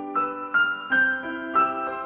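Background music: a slow piano melody, with a new note struck about every half second and ringing on.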